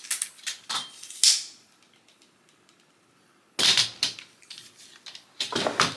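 Tripod being handled, making sharp clicks and clattering knocks: a few in the first second, then two short bursts of clatter in the second half.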